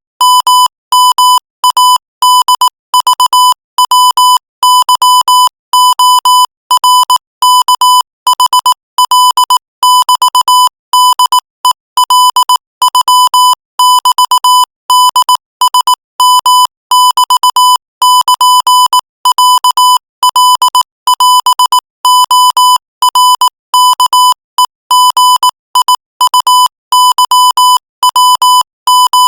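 Morse code sent at 22 words per minute: a single high, buzzy beep keyed on and off in quick dots and longer dashes, running on without a break.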